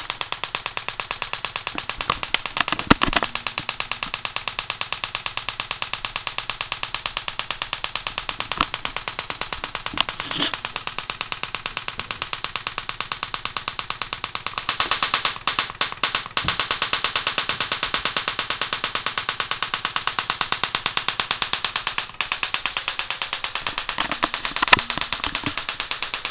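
High-voltage spark gap fed by an ignition coil and pulsed by a relay, snapping in a fast, even rhythm of several sharp cracks a second. Around the middle it grows louder and hissier, with a few brief breaks.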